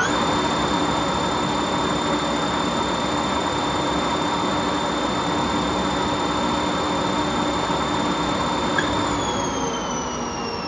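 Left and first top machine spindles running at speed on freshly replaced bearings, a steady high whine over a dense rushing noise. About nine seconds in the whine starts to fall in pitch and the sound fades as the spindles coast down.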